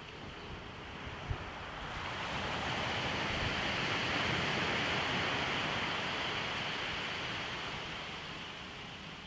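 Surf on a beach: a steady hiss of waves that swells about two seconds in, is loudest midway, then slowly fades as the wash runs out.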